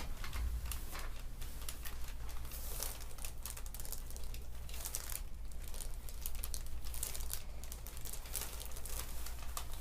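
Rustling and crinkling as a patient is handled on a chiropractic treatment table during a neck adjustment, with many small clicks throughout and a steady low hum underneath.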